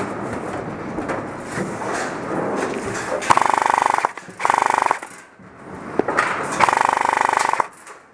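Airsoft electric gun firing three short full-auto bursts of rapid, evenly spaced shots, the last the longest.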